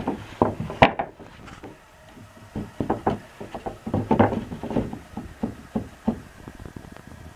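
Wooden pieces being handled and knocked together in a quick, irregular series of hollow knocks, with a short lull before a denser run of knocks.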